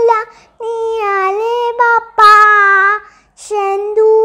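A young girl singing: long held notes in two phrases, with a short breath between them about three seconds in.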